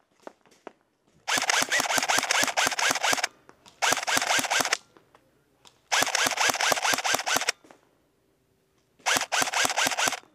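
Airsoft electric gun firing on full auto in four bursts, each a rapid train of sharp shots; the bursts are about two seconds, one second, one and a half seconds and one second long.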